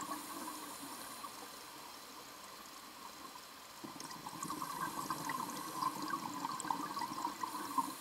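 Underwater recording of scuba divers' exhaled bubbles gurgling and crackling, fainter at first and stronger from about four seconds in.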